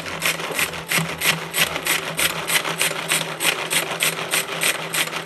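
Hand pull-cord mini food chopper worked with quick repeated pulls, its blades whirring and rasping through mint leaves with yogurt, about four or five strokes a second.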